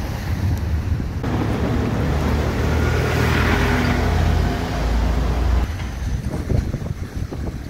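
City street traffic with a motor vehicle's engine passing close by. It swells to its loudest about three to four seconds in and eases off after about six seconds.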